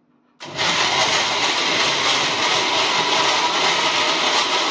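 Countertop electric blender switched on about half a second in and running steadily at full speed, churning a thick spice-and-garlic marinade with a cup of water added so the weak motor will turn.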